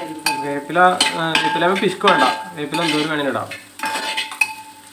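Metal spatula stirring and scraping frying onions and coconut pieces around a wide metal pan. The scrapes squeal and glide in pitch, with sharp clinks of metal on metal and a light sizzle underneath. It eases off near the end.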